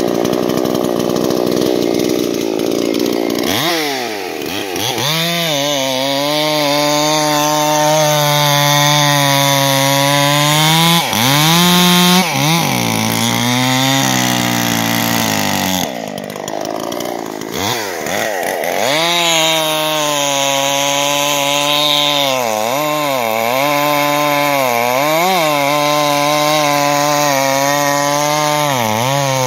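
Dolmar PS-5100S 50cc two-stroke chainsaw with a 20-inch bar and full-chisel chain running at high revs while cutting through a hackberry log. The engine pitch sags and recovers again and again as the chain is loaded in the cut, with several drops in the second half.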